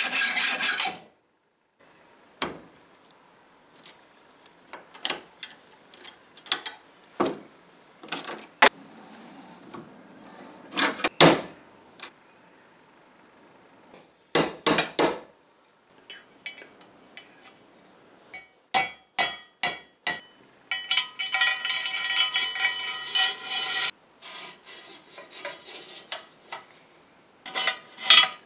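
Hand metalwork at a bench vice: a hacksaw cutting through a steel threaded rod at the start, then scattered metal clicks and knocks, a quick run of taps about two-thirds through, and a few seconds of rasping metal-on-metal strokes after that.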